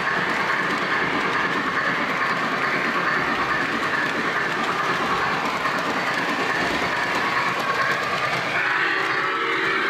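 O gauge three-rail model train rolling along the track, a steady running clatter of wheels on rail heard from a camera car riding in the train. Near the end a steady chord of several tones comes in over it.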